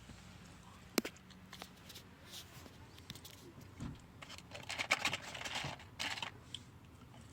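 Faint handling noises: a sharp click about a second in, scattered small clicks, then about two seconds of crinkly rustling, like a food wrapper or bag being handled.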